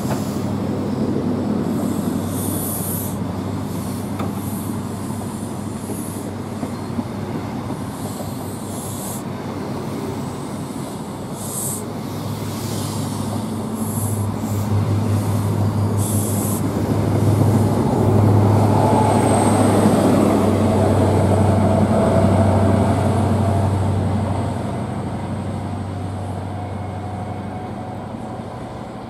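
Class 43 HST diesel train running past along a station platform: a steady diesel engine drone, with short high wheel squeals in the first half. The engine drone swells in the middle and fades near the end.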